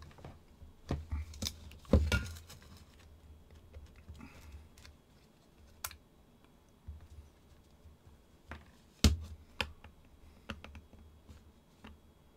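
Scattered light clicks and taps of small metal parts being handled: a steel spring being fitted against a brass powder flask. The clicks come irregularly, with the loudest knocks about two seconds in and again about nine seconds in.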